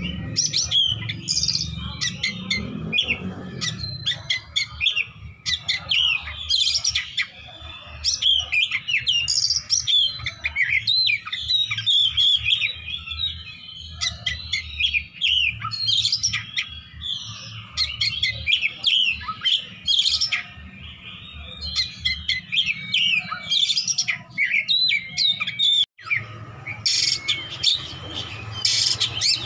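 Oriental magpie-robin (kacer) singing a fast, continuous, varied song of quick chirps, trills and whistles: the rapid 'besetan' style, rich in fill phrases. There is a brief break near the end.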